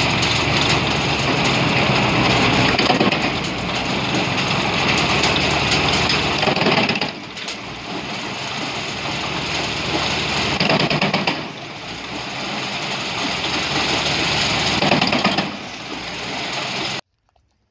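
Pezzolato PTH 30/50 tractor-PTO wood chipper running under load, its mechanical feed pulling in a log and branches to be chipped, with the tractor engine working underneath. The noise eases briefly three times between loads, then cuts off suddenly near the end.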